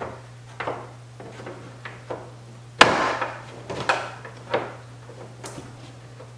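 Plastic keeper pins of a C7 Corvette's hood vent snapping loose as they are pried out with trim-removal tools: a string of sharp clicks and snaps, the loudest nearly three seconds in.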